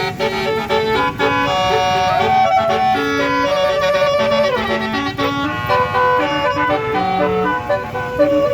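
Tour bus basuri horn playing a melody: a run of held notes with several slides up and down in pitch, over a steady low rumble.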